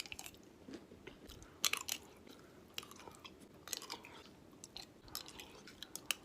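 A person chewing and biting crunchy food close to the microphone, with irregular clusters of crisp crackles a few times a second.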